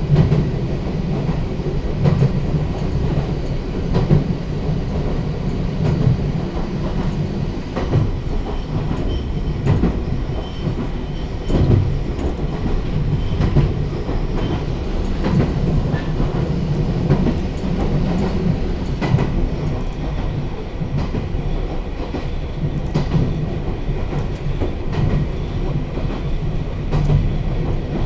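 Kamikochi Line electric train running, heard inside the passenger car: a steady low rumble of wheels on rail, with a clickety-clack knock from the wheels over rail joints about every two seconds.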